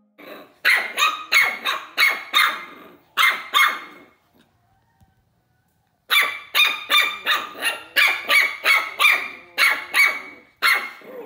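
Puppy yapping: two runs of rapid, high-pitched barks, several a second, with a near-silent pause of about two seconds in the middle.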